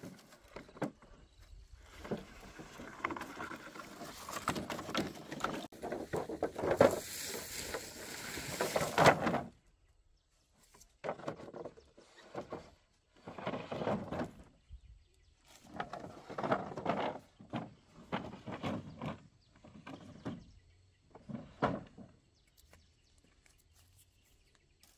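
Dry bamboo poles knocking, scraping and clattering against each other as they are dragged and stacked by hand. A near-continuous stretch of scraping for about the first nine seconds, then shorter separate bursts of knocks with quiet gaps between them.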